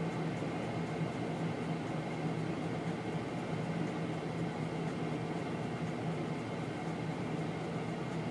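Mobile rock crusher running with a Cat excavator working beside it: a steady diesel drone with a constant low hum, unbroken throughout.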